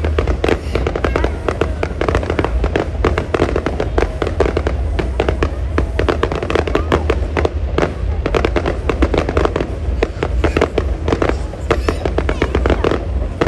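Fireworks going off in a dense, continuous barrage of overlapping bangs and crackles, with no let-up.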